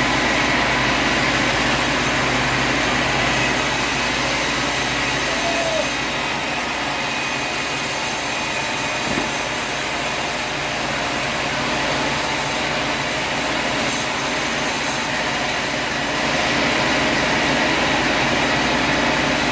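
Sawmill machinery running steadily: a motor's drone with several steady whining tones. It eases a little a few seconds in and comes back up near the end.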